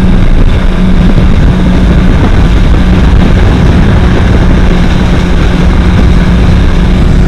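Speedboat's outboard engine running steadily at speed, a constant hum under heavy wind buffeting on the microphone and the rush of the wake.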